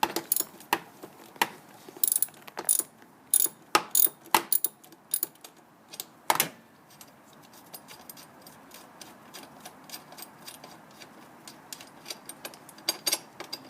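Ratchet wrench with a 12 mm socket and extension bar clicking in uneven runs as bolts are loosened, with a few metal tool clinks. The clicks thin out about halfway through and pick up again near the end.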